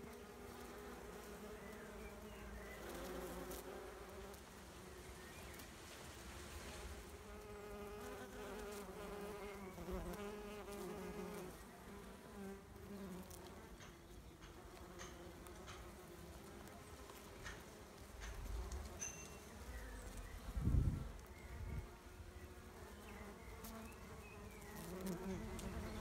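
Bumblebees buzzing as they fly among the flowers of a shrub, a faint hum that wavers in pitch and comes and goes as they move. A brief low rumble about three-quarters of the way through.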